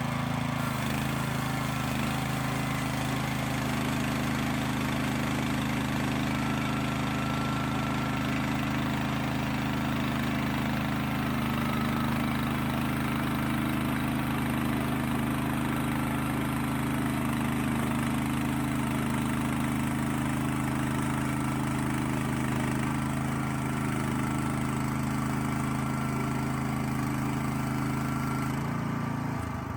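Timbery band sawmill's engine running steadily as the blade saws through a log, then cutting off suddenly at the very end.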